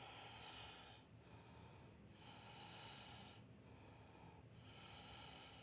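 Faint, slow breathing close to the microphone: three long breaths through the mouth or nose, roughly one every two seconds, with quieter gaps between.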